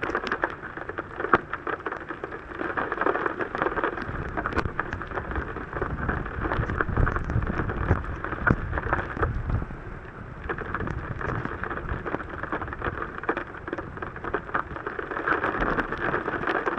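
Heavy rain pelting a car's roof and windshield, heard from inside the car as a dense, steady patter of drops. A low rumble swells about four seconds in and fades by about ten seconds.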